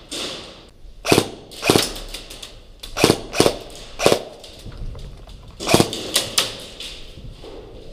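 Airsoft guns firing single shots: about nine sharp pops, irregularly spaced, with a quick run of them near six seconds in.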